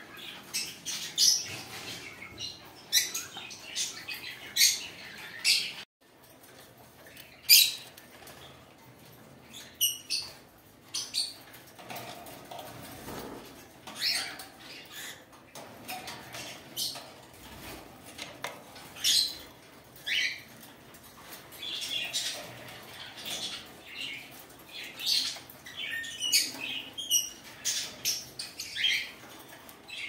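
Small caged birds calling: many short, sharp chirps and squeaks at irregular intervals, several birds at once.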